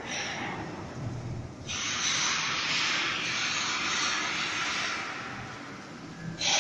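Gantry welding machine at work: a steady hiss that starts abruptly about two seconds in, fades near the end and starts again at the very end, over a low hum.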